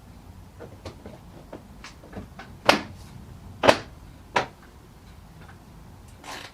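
Sharp clicks and knocks from hand tools and plastic car trim being handled while a bumper cover is refitted. There are about a dozen irregular taps, with three louder knocks in the middle.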